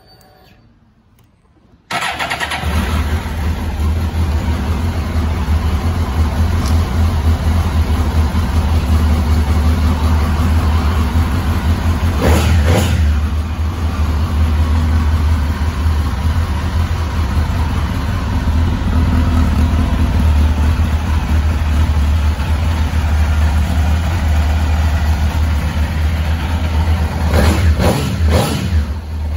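A 2003 Suzuki GSX-R1000 K2's inline-four on its original exhaust can catches about two seconds in from a cold start. It then idles steadily, swelling briefly about twelve seconds in and twice near the end.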